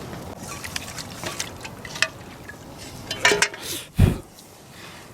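Liquid sloshing and dripping with scattered small clicks and knocks, typical of cooking work, and a dull thump about four seconds in.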